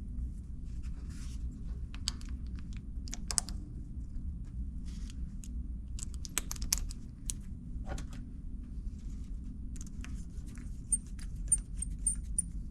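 Scattered small metallic clicks and taps as brake pads and a pad retaining pin are fitted by hand into a Hope X2 hydraulic disc brake caliper, over a low steady hum.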